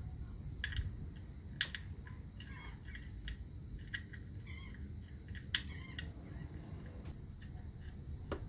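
A cat meowing: three short calls about two seconds apart, with a few light clicks around them.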